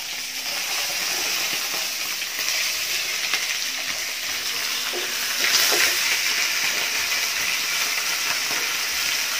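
Whole tilapia frying in hot oil in a pan, a steady sizzle, with a few faint taps as the fish is handled in the pan; the fish is nearly cooked.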